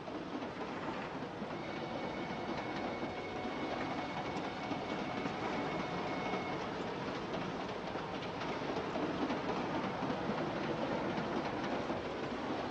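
Passenger train running, heard from inside the carriage: a steady rumble and rattle of the wheels on the rails. About two seconds in, a faint high steady tone sounds for about five seconds.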